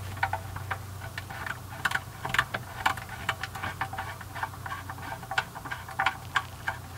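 Irregular plastic clicks and knocks as a flexible hose is worked onto the PVC pipe and union inside a hollow artificial fountain rock, over a steady low hum.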